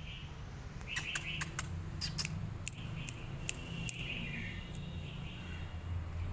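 Small birds chirping: a quick run of sharp, high chirps in the first few seconds, with short high calls in between, over a low steady hum.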